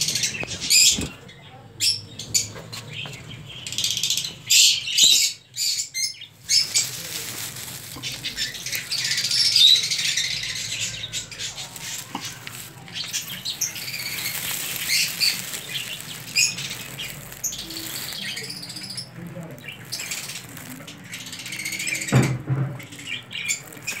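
A flock of small cage birds chirping and chattering in an aviary. The calls come in busy bursts with short lulls between them, and there is a single bump near the end.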